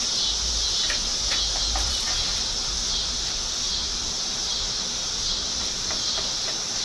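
Steady high-pitched hiss with a few faint clicks, and a low rumble during the first two seconds.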